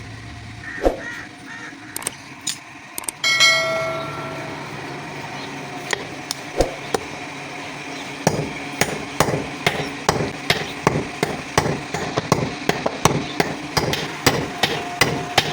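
Hammer blows on spring steel at a forge. A few scattered strikes come first, with one ringing metallic strike about three seconds in. From about eight seconds in there is steady hammering, about two to three blows a second.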